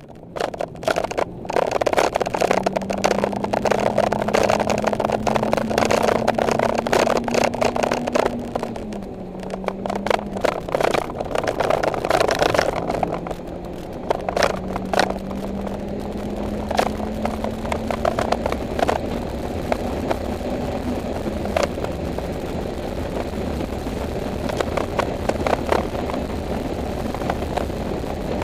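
2011 Mitsubishi Lancer Evolution X GSR's turbocharged 2.0-litre four-cylinder engine heard from inside the cabin while lapping a race track. Its note climbs steadily, drops at a gear change about nine seconds in, then climbs again. Heavy road and wind noise and many sharp clicks run underneath.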